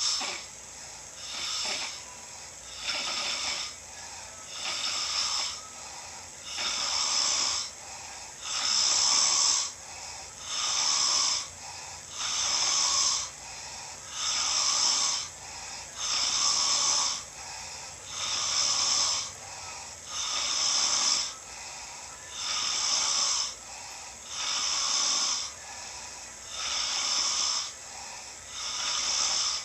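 A man snoring in a steady rhythm, one breathy snore about every two seconds, growing louder over the first several seconds and then holding even.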